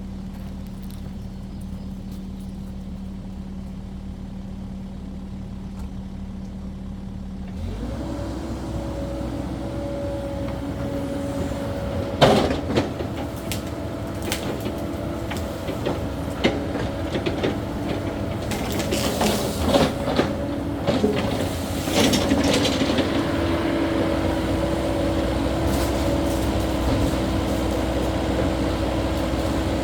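Caterpillar 308E2 mini excavator's diesel engine idling steadily, then revved up about eight seconds in and working under load. Over the rest of the time there are repeated clanks and knocks from the bucket and the dirt and rock it moves, the loudest a sharp bang about twelve seconds in.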